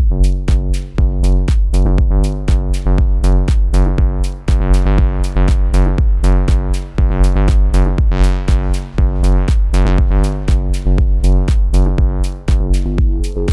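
Moog Subsequent 25 analog synthesizer playing a deep, repeating bass line over a drum machine beat with steady ticks about four times a second. The bass tone brightens and darkens in slow sweeps.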